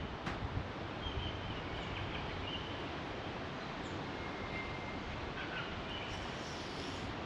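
Steady outdoor background noise with a few faint, short high chirps, like distant birds, and a single sharp click just after the start.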